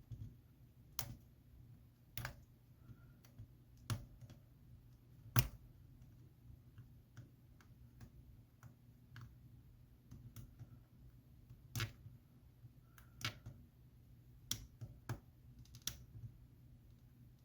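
Irregular small clicks and taps of a plastic pry tool on an iPhone X's internals as the display's flex-cable connectors are pried off their sockets, one click standing out louder about five seconds in.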